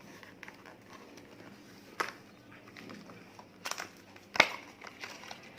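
Smartphone retail box being opened and its paper contents handled: scattered clicks and rustles of cardboard and paper, the sharpest click about four and a half seconds in.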